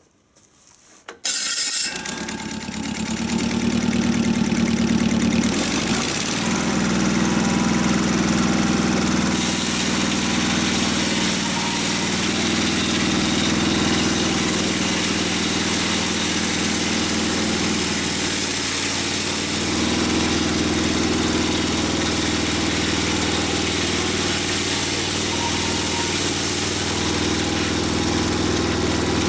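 Sawmill engine starting about a second in, then running steadily.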